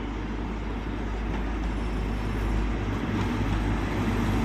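Class 43 diesel power car of an InterCity 125 high speed train running as the train pulls into the platform. Its steady engine drone grows gradually louder as it approaches.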